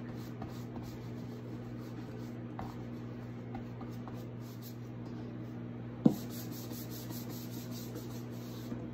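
A round bristle wax brush scrubbing clear wax over a chalk-painted book, a soft steady rubbing over a low hum. A single sharp knock about six seconds in.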